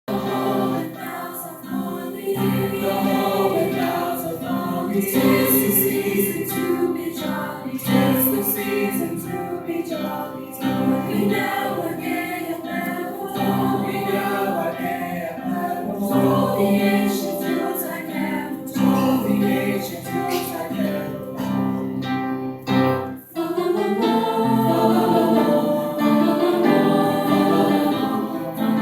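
School chorus singing, with a brief drop in the sound about 23 seconds in before the singing carries on.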